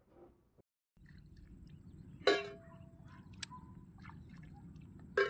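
Outdoor ambience at a flooded rice paddy: a steady low rumble and a steady high thin whine. A few short sharp sounds break in, the loudest about two seconds in and another near the end.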